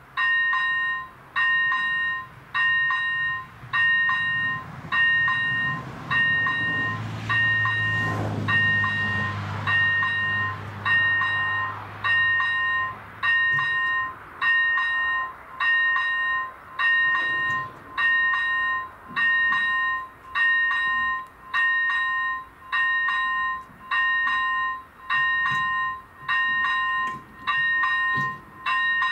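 Electronic level-crossing warning bell ringing an even, pitched ding about once a second. A train passes from about four to fourteen seconds in, its rumble loudest around eight seconds.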